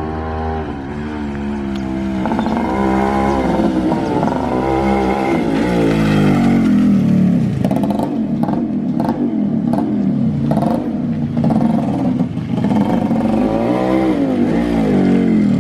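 Suzuki Shaolin two-stroke motorcycle engine with an expansion-chamber exhaust, revved up and down again and again on the throttle. There is a run of sharp crackles about halfway through.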